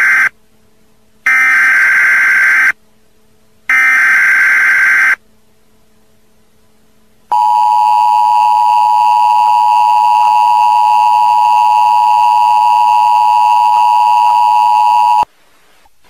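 Emergency Alert System tones. The SAME header data bursts come first: one ends just as the sound begins, then two more follow, each about a second and a half long with about a second between. About two seconds later comes the steady two-tone EAS attention signal, held for about eight seconds and cut off suddenly near the end.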